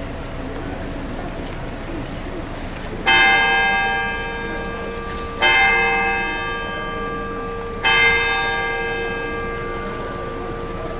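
A large bell struck three times, about two and a half seconds apart, each stroke ringing on and slowly fading; a lower hum from the bell carries on between strokes. The last of an earlier stroke is still dying away at the start.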